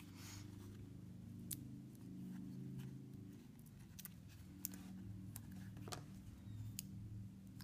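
Faint clicks and light rustles of a sheet of foam adhesive being handled, with pieces peeled off their backing and pressed onto cardstock; about six sharp ticks, over a low steady hum.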